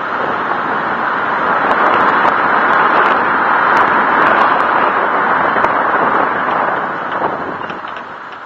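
Lexus LS460 moving with a harsh scraping, rasping noise from a wheel, swelling over the first few seconds and fading toward the end, with faint crackles. The owner takes it for a brake rotor rubbing against its dust cover, after the suspension compressed over a grate.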